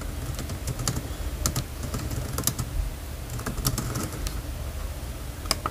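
Typing on a computer keyboard: quick, irregular keystroke clicks, over a low steady hum.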